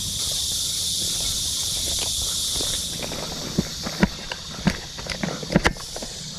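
Footsteps through jungle undergrowth: irregular steps and rustles from about three and a half seconds in. Under them runs a steady high insect drone that drops in level about three seconds in.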